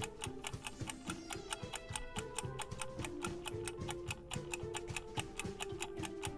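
Countdown-timer clock ticking quickly and evenly, over soft background music with held notes.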